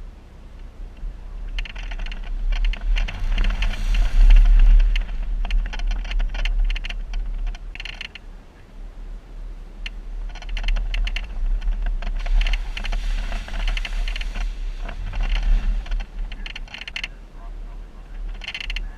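Jeep driving over a rough off-road trail: a low rumble runs throughout under bursts of rapid clattering and rattling, and the engine rises in pitch briefly about fifteen seconds in.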